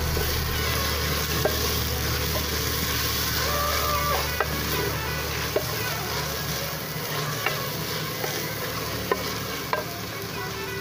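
Chopped tomatoes, onion and garlic sizzling in hot oil in a clay pot while being stirred with a wooden spoon. The spoon clicks against the pot's side a few times.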